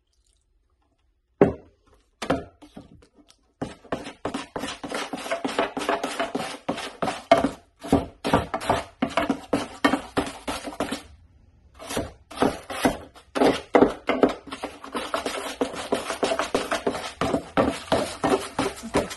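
Metal putty knife mixing wet Feather Finish cement in a metal mud pan, with quick repeated scraping and tapping strokes against the pan. A single knock comes first, then steady mixing with a brief pause about two-thirds of the way through.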